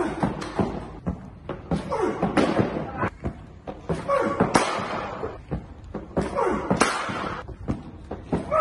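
Repeated sharp knocks and thuds from fast bowling practice in cricket nets, as balls are delivered and strike pitch, bat and netting. Voices call out in several short stretches between them.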